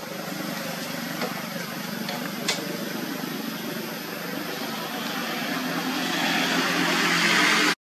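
A motor engine running steadily, growing louder over the last couple of seconds.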